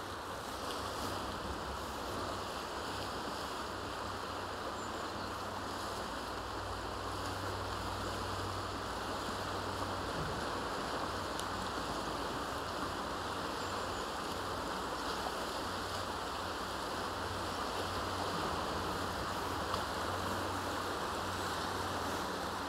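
Steady rush of a large, fast-flowing river's current.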